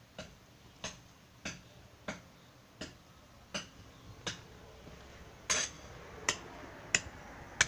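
Footsteps on a hard surface at an unhurried walking pace, about one and a half steps a second, growing louder in the second half.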